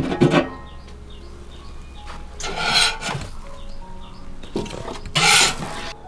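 Three short, rasping scrapes, one at the start, one near the middle and one near the end, over soft background music.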